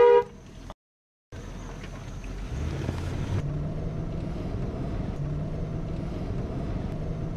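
Car engine and road noise heard from inside the cabin while the car moves slowly: a steady rumble with a low engine hum. It starts about a second in, after a brief dropout.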